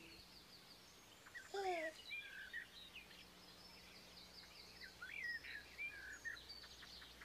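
Birds chirping and twittering throughout. About one and a half seconds in, a baby gives one short coo that falls in pitch.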